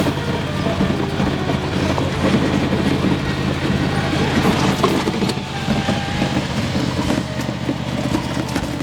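Vehicle engine running steadily under loud, continuous rattling and clattering, as of a vehicle being driven.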